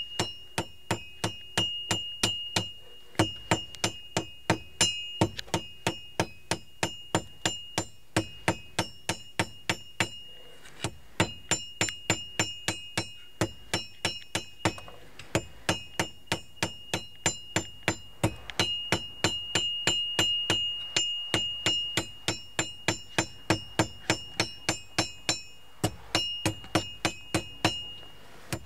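Hand hammer striking hot steel on a small anvil, drawing out a taper on the end of the bar: a steady run of blows, about two to three a second, each ringing with a high metallic tone, broken by a few short pauses.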